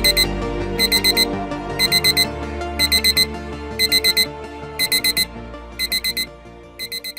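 Digital alarm-clock beeping: quick groups of four high beeps, about one group a second. Background music runs underneath and fades out near the end.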